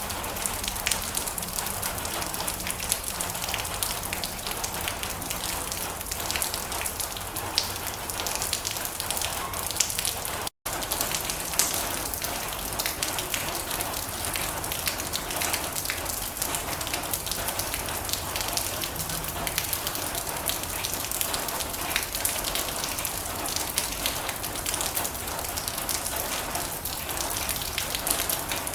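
Steady rain drumming on a metal roof: a dense patter of many separate drops. It cuts out for a split second about ten seconds in.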